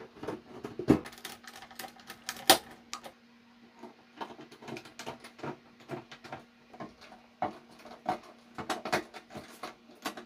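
Irregular clicks and knocks of a CD player's top cover being handled, slid into place and pressed down onto the chassis, with two sharper knocks about one and two and a half seconds in.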